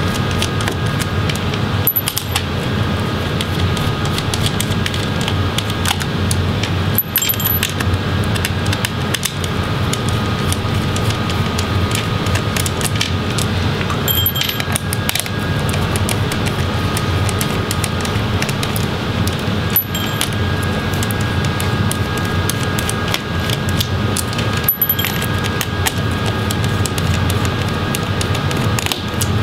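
Small Phillips screwdriver backing out laptop battery screws: light metallic clicks and clinks from the bit and the screws. A steady background hum is louder throughout.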